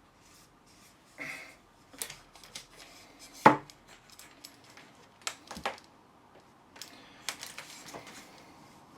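Hard clicks and knocks from a jammed telescopic suitcase handle mechanism being worked and handled. There is one sharp knock about three and a half seconds in, louder than the rest, and a cluster of quicker clicks near the end.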